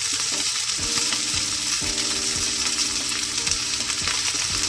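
Asparagus sizzling hard in butter and a little water in a frying pan, with a steady low hum underneath.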